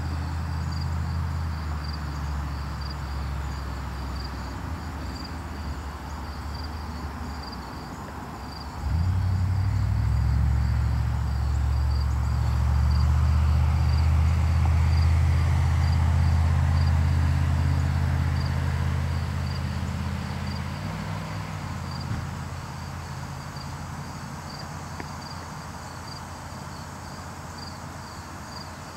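Crickets chirping in a steady, regular high pulse. Under them runs a low engine hum that jumps louder about nine seconds in and fades away from about twenty seconds on.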